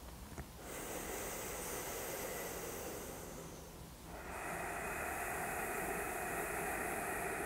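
A man's deliberate deep breath: an inhale starting about a second in and lasting about two and a half seconds, then a longer, slightly louder exhale from about four seconds in until the end.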